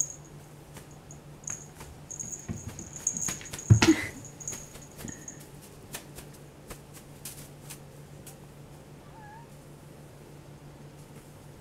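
A domestic cat meows once, about four seconds in, the loudest sound here, amid scattered light taps and clicks. A faint low hum runs underneath.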